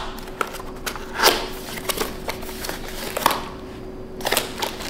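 Packaging rustling, with irregular small clicks and knocks, as a long-handled grout brush is unpacked and handled.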